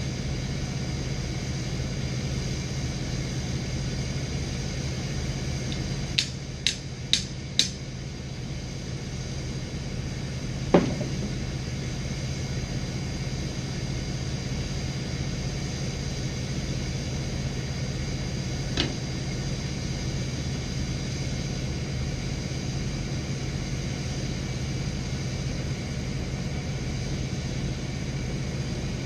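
Bucket truck engine running steadily with a constant low hum. About six seconds in come four quick sharp clicks, then a single louder knock a few seconds later and a fainter one near the end of the first two-thirds.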